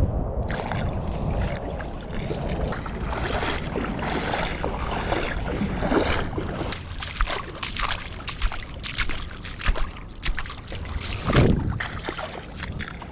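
Water sloshing and splashing at the water's edge, with many sharp slaps and clicks, mostly in the second half.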